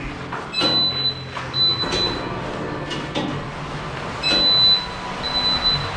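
Electronic turnstile reader beeping as passes are scanned: two pairs of short high beeps, the beeps in each pair about a second apart, with the clunk of the turnstile's metal arms turning.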